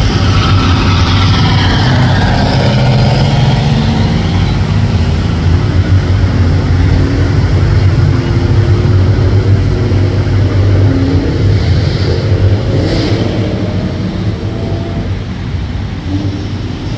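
Road traffic: car engines running as vehicles drive past, with a steady low drone and one vehicle's pitch falling as it goes by in the first few seconds.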